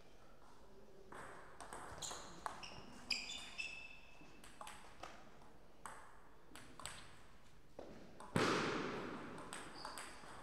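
Table tennis ball clicking sharply off paddles and the table, with a few ringing pings as it bounces about three to four seconds in. About eight seconds in comes one loud hit that dies away over about a second, the loudest sound here.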